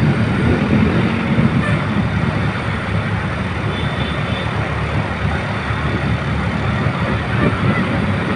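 Large road vehicle passing close by: a steady rumble of engine and tyres on the road.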